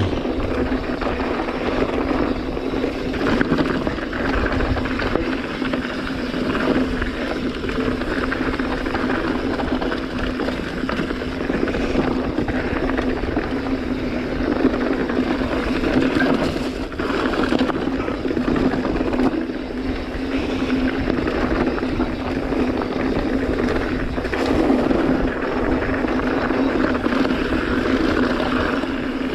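Mountain bike descending a loose, rocky dirt trail: a steady rush of wind on the mounted camera's microphone mixed with tyre and bike rattle over gravel, with a constant low hum underneath.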